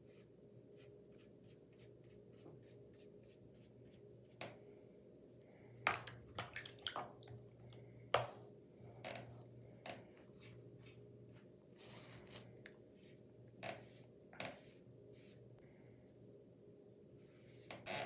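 Faint scattered clicks and taps of a watercolour brush working in a paint palette and on paper, over a low steady hum.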